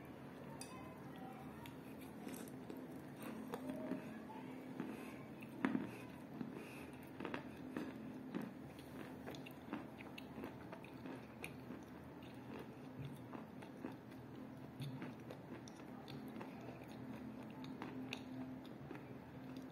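Close-mouthed chewing of chalk pieces soaked in kaolin paste, with many small, irregular crunches and crackles; the loudest crunch comes about six seconds in. A faint steady hum lies underneath.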